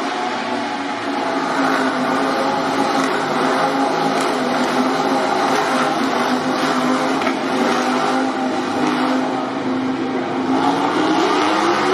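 MotoGP racing motorcycle engine running at a steady high pitch; the note dips and climbs again near the end.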